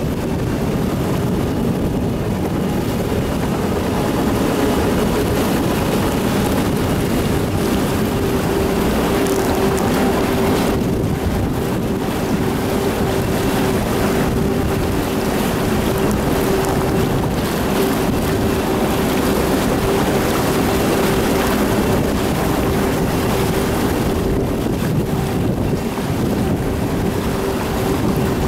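Amphibious tour bus under way on the water: its engine runs steadily with a constant hum, over the rush of water churning along the hull and wind buffeting the microphone.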